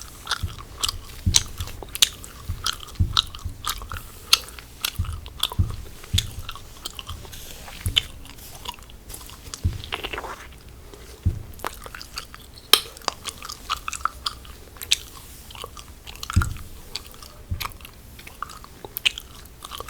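Gum chewing close to the microphone: irregular wet smacks and sharp clicks of the mouth and gum.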